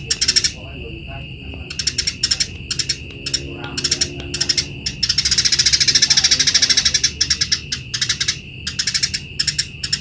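Eurasian tree sparrow chattering in bursts of rapid, buzzy chips, with one long unbroken rattling trill from about five to seven seconds in. A steady high whine runs beneath.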